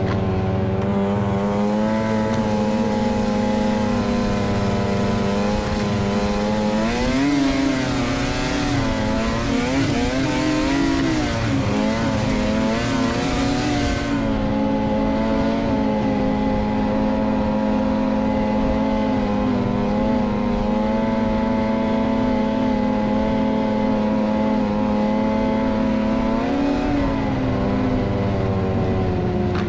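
Snowmobile engine running at cruising speed. Its pitch rises and wavers through two spells of higher revs in the first half, while a hiss grows louder over it, then it settles back to a steady note, with one more brief rise near the end.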